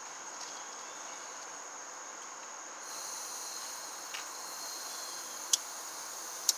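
A steady high cricket chirp, joined about three seconds in by a faint hiss of gas from a blow torch being opened, with two sharp clicks near the end.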